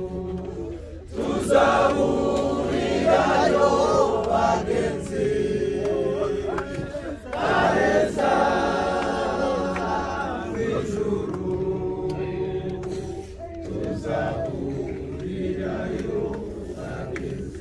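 A group of mourners singing together unaccompanied, a chant-like hymn, swelling louder about two seconds in and again about eight seconds in.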